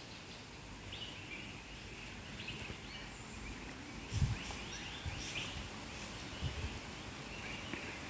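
Outdoor ambience with scattered faint bird chirps. A few low thumps come in the middle, the first and loudest about four seconds in, typical of the hand-held recording device being bumped or handled.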